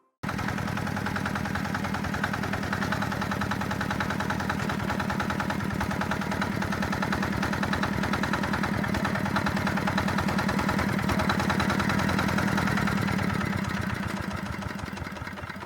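Heavy walk-behind tractor's engine running steadily with a fast, even firing beat; it cuts in suddenly and fades out near the end.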